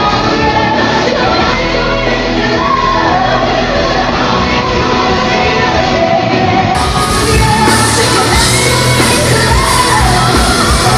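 Live concert recording of a woman singing high notes in mixed voice into a microphone over a full pop band, heard from the audience in a large hall. About seven seconds in it cuts to another live recording of the same kind of singing.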